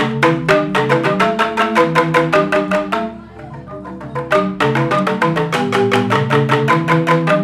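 Balinese joged bungbung gamelan of bamboo xylophones (grantang) playing a fast, even run of struck notes. The playing drops away briefly about three seconds in, then starts again about a second and a half later.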